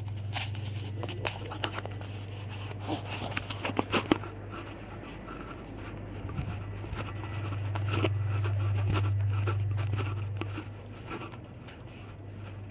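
Phone microphone muffled inside a pocket: fabric rubbing and scratching against it, thickest in the first few seconds, over a steady low hum that grows louder for a few seconds past the middle.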